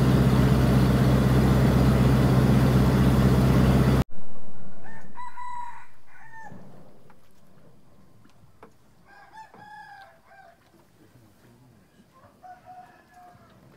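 A boat engine runs with a steady low hum for the first four seconds and stops abruptly. Then roosters crow repeatedly from the riverbank village, several calls in three groups.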